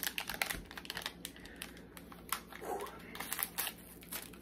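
Candy packaging crinkling as it is handled and unwrapped: quick, irregular crackles.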